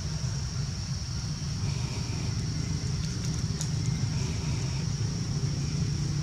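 Steady outdoor background: a continuous low rumble like a distant engine, with a steady high-pitched buzz over it and a few faint clicks.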